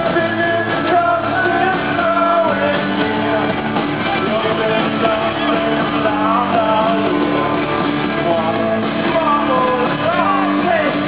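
Indie rock band playing live on electric guitars and drums, with a man singing the lead vocal, recorded from among the audience.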